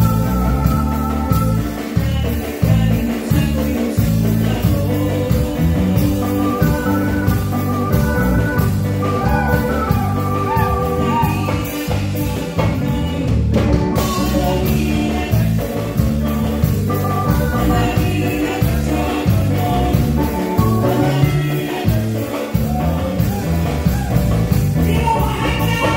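Live chilena oaxaqueña played on electronic keyboards, a Korg N364 and a Korg M1, with a strong rhythmic bass, and a woman singing the melody into a microphone.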